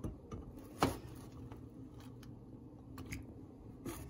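Cooked penne pasta being tipped into a pan of creamy sauce: a few soft wet plops and clicks, with one sharper knock about a second in.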